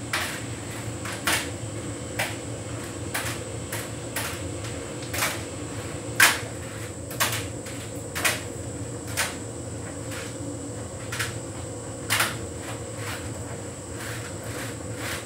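Hotpoint heat pump tumble dryer running a synthetics cycle: a steady hum with a faint high whine, while the laundry tumbling in the drum makes irregular knocks and clicks about once a second.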